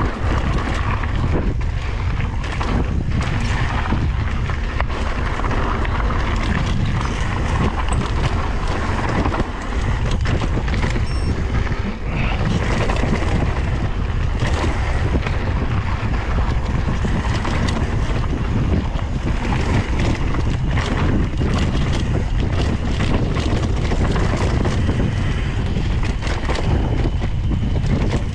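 Wind buffeting the microphone of a camera on a mountain bike moving fast down a dirt singletrack, over the steady rumble of the tyres on the dirt and frequent sharp knocks and rattles of the bike over rough ground.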